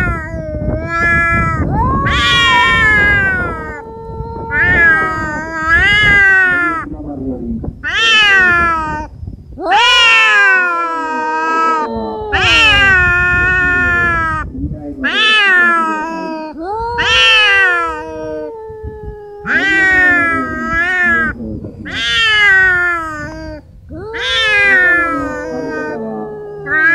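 Cats yowling at each other in a fight standoff: a long run of drawn-out, wavering howls that rise and fall in pitch, one every couple of seconds.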